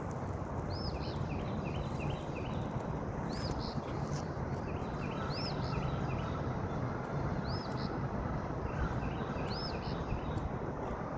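A small bird repeating a short, high chirping phrase about every two seconds, over a steady rush of outdoor noise.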